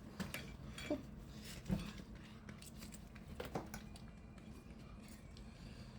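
Cutlery clinking and scraping against dishes while someone eats, with a handful of scattered knocks and clinks.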